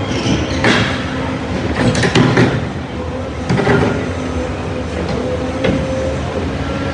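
Tracked excavator running steadily while its attachment tears up tram track, with irregular crunching and scraping of steel rail and concrete, loudest about two seconds in.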